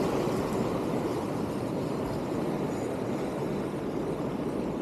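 Steady rushing of wind and surf, with waves washing against the jetty's rocks.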